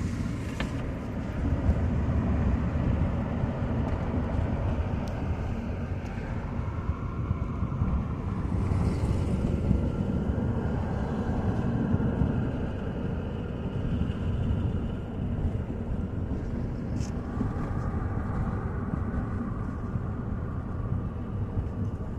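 2010 Toyota Matrix driving, a steady road and engine rumble heard from inside the car.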